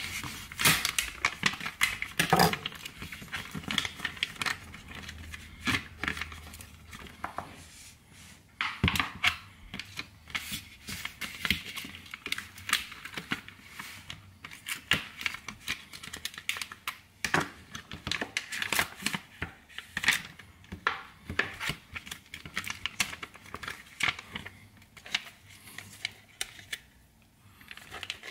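Packaged salmon fillet being cut open with a kitchen knife: the cardboard sleeve and plastic film tear and crinkle in irregular short rustles and clicks.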